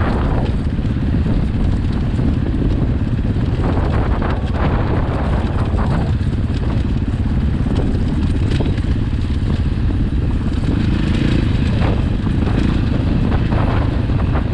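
KTM dirt bike engine running steadily on a downhill ride, with scattered knocks and rattles from the bike over rough ground.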